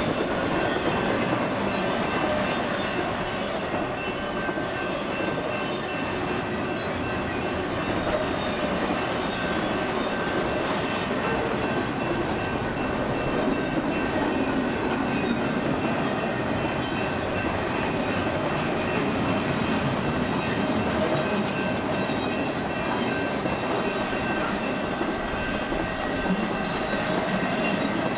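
Cars of an intermodal freight train rolling past at steady speed: a continuous rumble and rattle of steel wheels on the rails, with a thin steady high tone running through it.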